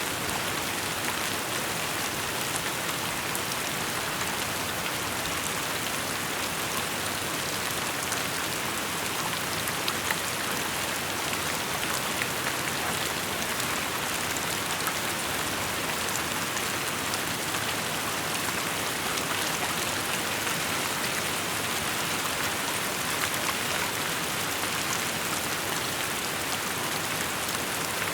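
Steady heavy rain falling, with scattered individual drop ticks.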